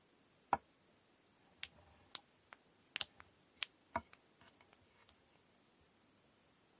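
Sharp clicks and knocks of hard braiding tools being handled, about eight in quick succession over three seconds, then a few faint ticks.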